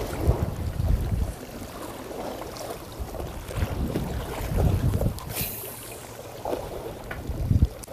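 Wind buffeting the microphone in uneven gusts, with a short hiss about five seconds in.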